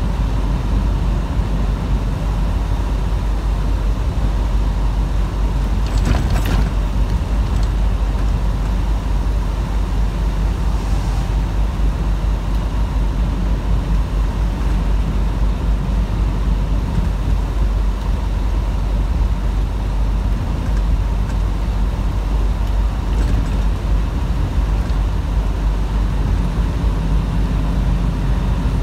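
Inside a semi-truck's cab while driving on a wet highway: steady engine drone and road noise, with one brief louder swish about six seconds in.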